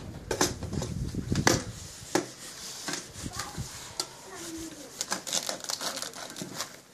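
Knife cutting through the crisp crackling skin of a spit-roasted suckling pig: a run of sharp crunches and cracks, thickest near the start and again about five seconds in.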